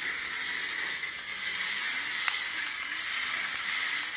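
Carrera Hybrid toy race car driving on its mat track: a steady hiss with a faint whine that rises and falls with the throttle, and a single light tick about two seconds in.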